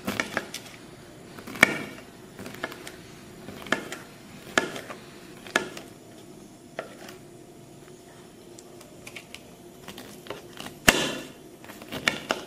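Kitchen knife cutting pineapple into small pieces on a ceramic plate: the blade taps and clicks against the plate at irregular intervals, with the sharpest clicks about a second and a half in and near the end.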